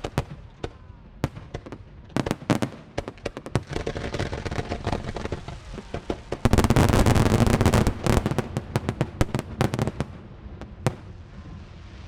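Aerial fireworks going off in quick succession: many sharp bangs and crackles, building to a dense, continuous barrage for a second or two past the middle, then thinning to a few scattered pops near the end.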